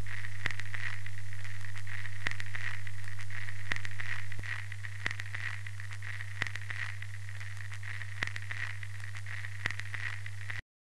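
Old-film sound effect: a steady low hum under hiss, with scattered crackles and pops like a worn film print. The level drops about four seconds in, and the sound cuts off suddenly near the end.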